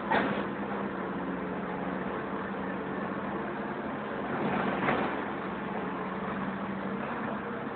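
Diesel engines of heavy construction machinery running steadily, a constant hum. Two brief louder rushes of noise stand out, one at the very start and one about five seconds in.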